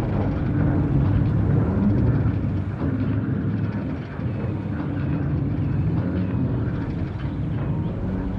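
An engine running with a steady low drone and pitched hum. It cuts in sharply and stays even throughout.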